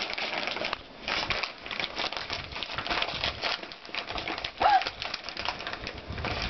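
Gift-wrapping paper crinkling and tearing as a dog pulls at it with its mouth: a dense, continuous run of rustles and crackles, loudest in a sharp rip a little after the middle.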